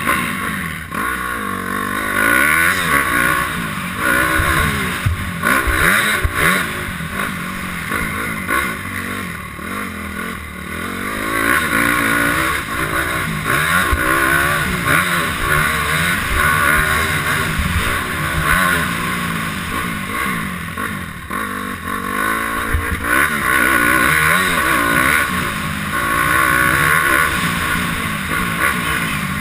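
Honda CRF250R four-stroke single-cylinder engine heard from on board while riding a motocross track, revving up and dropping again and again as the rider accelerates, shifts and rolls off for corners. A few sharp knocks sound through it.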